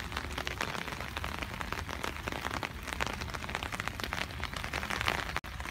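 Rain falling steadily, with many small drops ticking close by.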